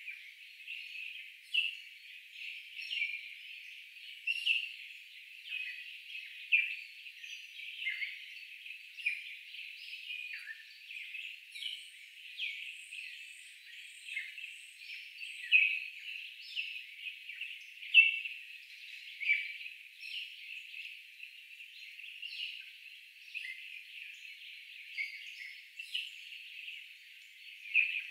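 A dense, unbroken chorus of many birds chirping and calling over one another, thin and high-pitched, with a few louder calls standing out.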